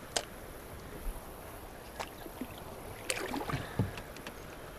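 Canoe paddle sounds: a sharp click just after the start, a small knock about two seconds in, and a cluster of knocks and low splashy thuds between three and four seconds in, over steady faint river water.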